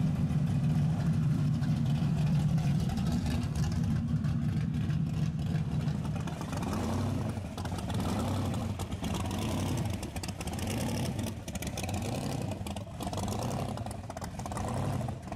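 Classic cars rolling slowly past: a steady low engine rumble for the first half, then the uneven, pulsing engine note of a rat rod pickup idling by.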